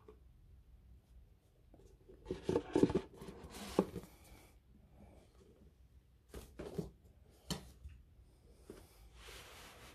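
Handling noise from a box set's cardboard outer box: a cluster of taps, knocks and rustling a couple of seconds in, the loudest part, then a few sharper knocks as it is set down and a short scraping rustle near the end.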